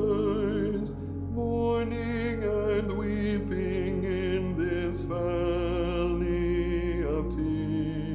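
Soprano voice singing a hymn line with vibrato over sustained low accompanying notes; a few sharp hissing consonants cut through.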